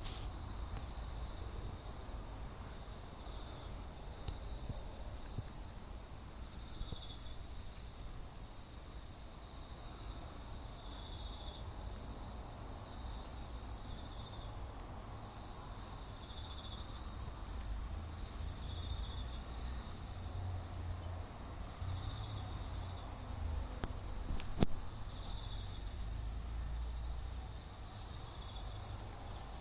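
An insect trilling in one steady, unbroken high note, with a softer chirp repeating every couple of seconds beneath it. Under this runs the low rumble of the bonfire, and a few sharp pops come from the burning wood, the loudest about 25 seconds in.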